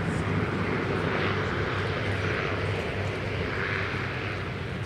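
Porter Airlines Dash 8-400 turboprop rolling down the runway for takeoff, its engines and propellers giving a steady drone that eases off slowly near the end.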